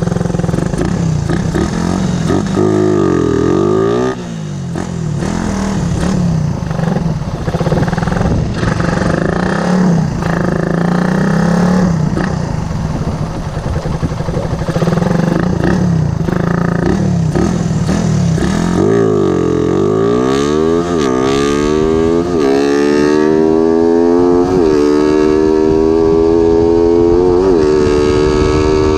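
Suzuki Raider 150 four-stroke single ridden on the road with an aftermarket Big Elbow exhaust header. The engine note drops and picks up again twice, then climbs steadily as the bike accelerates through the gears, with a brief dip at each of a few upshifts near the end.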